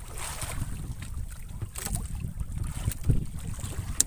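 Wind buffeting the microphone on a small outrigger boat in choppy sea, with water slapping against the hull and a few short knocks.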